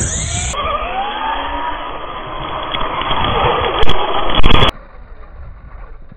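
Losi LMT King Sling RC monster truck running hard in sand: its electric motor whines and rises in pitch over tyre and grit noise. There are two loud knocks close to the microphone about four seconds in, and then the sound drops to a faint, distant running.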